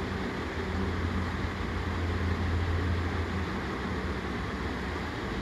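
Steady low hum under a constant hiss of background room noise, with no distinct events.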